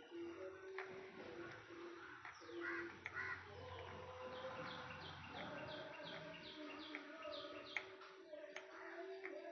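Faint birdsong: low cooing notes and a quick run of high chirps, with a few sharp clicks.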